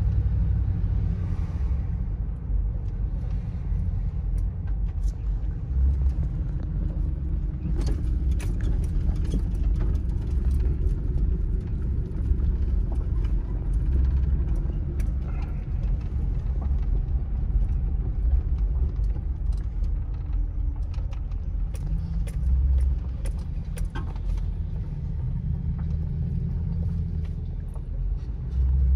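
Low, steady rumble of a 2009 Ford Crown Victoria Police Interceptor's V8, heard from inside the cabin, with light clicks and rattles scattered through.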